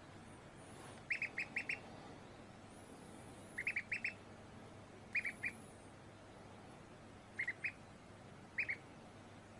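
Duckling peeping: five quick runs of two to four short, high peeps, spaced a second or more apart.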